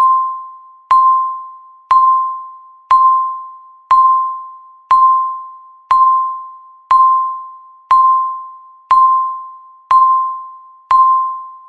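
Countdown timer beep: one sharp electronic tone at a single pitch, sounding once a second and fading away before the next, twelve times, one for each second left on the countdown.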